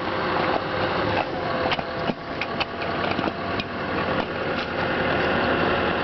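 Large excavator's diesel engine running steadily, with scattered sharp knocks and cracks over it.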